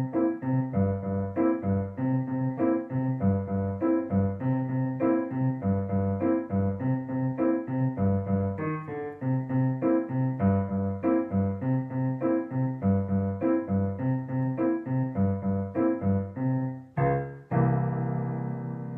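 Yamaha digital piano played with both hands: a steady beat of repeated note pairs over bass notes, with a short break near the end before a final held chord that rings out.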